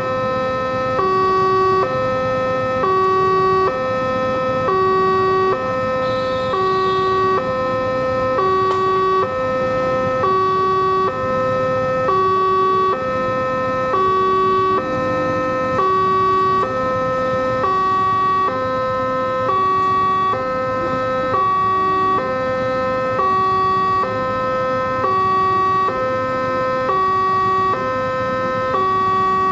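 Railway level-crossing warning alarm sounding continuously, an electronic two-tone alternating high and low about once a second.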